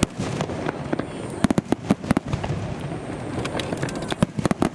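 A starmine fireworks barrage: a rapid, irregular run of sharp bangs and crackles over a continuous rumble of bursts. The bangs come thickest about a third of the way in and again near the end.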